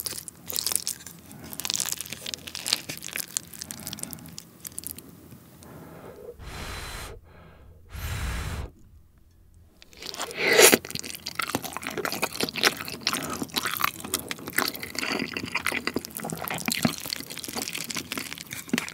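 A wooden spoon stirs and scrapes fried rice in a pan with many small clicks, then two short rushing noises. About ten seconds in, a mouthful is taken and chewed close to the microphone, with moist chewing and crunching.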